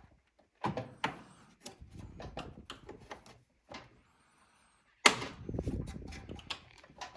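Plastic clicks, scrapes and knocks as clips and panels on the dryer are pried and handled with hand tools, with a sharper, louder knock about five seconds in.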